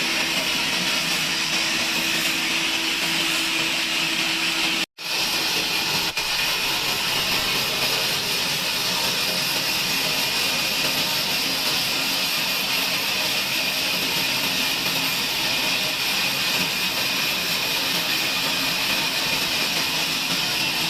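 Sawmill bandsaw running steadily as it cuts through a log. The sound cuts out for an instant about five seconds in, then goes on as before.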